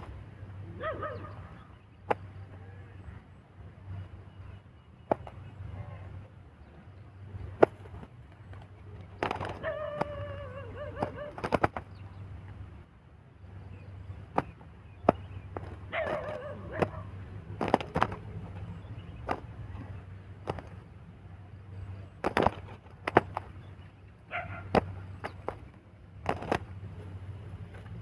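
Dove caught in a ground trap flapping its wings in sharp slaps and clatters against dry grass, in irregular bouts. Several short pitched bird calls come in between, at about a second, ten seconds and sixteen seconds in, and again near the end.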